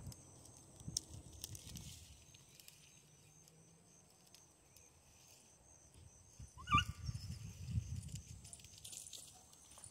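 A hound gives a single short, high yelp about two-thirds of the way through. It comes over a faint, irregular low rumble on the microphone.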